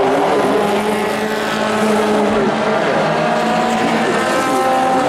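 Several Pro4 race trucks' engines running at racing speed, their pitches rising and falling and overlapping as the trucks accelerate and lift.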